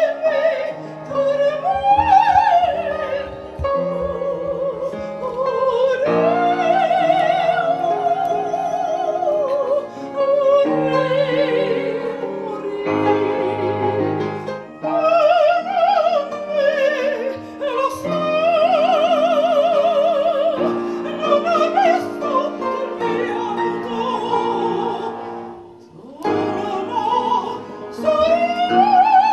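A woman singing in a trained, operatic style with wide vibrato, accompanied on an upright piano, with a short break between phrases near the end.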